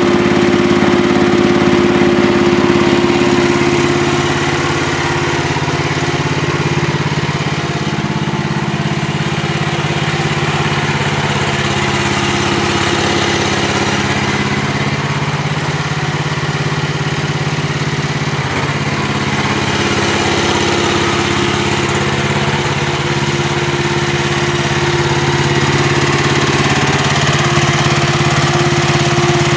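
Small gasoline engine of a 1-ton mini excavator running steadily. Its pitch sags a few seconds in and climbs back in the second half.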